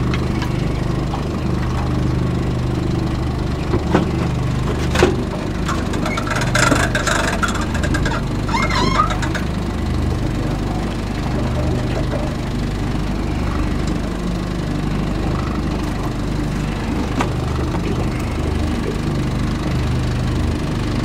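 Evinrude 40 outboard motor idling steadily, with a few sharp knocks about four and five seconds in and a short burst of clatter and noise between about six and nine seconds in.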